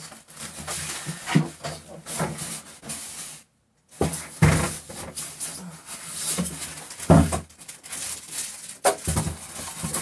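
A portable plastic dehumidifier being handled and shifted about by hand: scattered knocks and bumps of its casing with some rubbing. The sound cuts out completely for about half a second a little over three seconds in.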